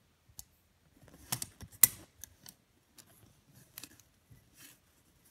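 Metal tape measure being handled: a scattering of irregular short clicks and light rattles, the sharpest about two seconds in.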